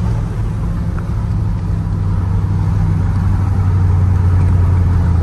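Twin-turbo Chevrolet Silverado running on its new 3-inch exhaust, heard as a steady low drone from inside the cab while driving. It grows a little louder over the last couple of seconds.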